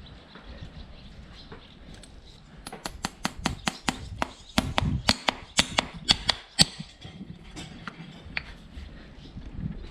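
Farrier's hammer striking a steel horseshoe: a fast run of ringing metal blows, several a second, from about three seconds in until nearly seven seconds, with lighter knocks before and after.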